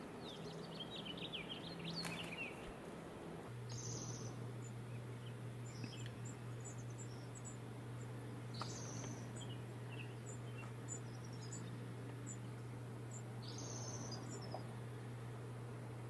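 Wild songbirds calling and singing: a run of quick high chirps near the start, then a short falling song phrase repeated about every five seconds, over a steady low hum that comes in a few seconds in.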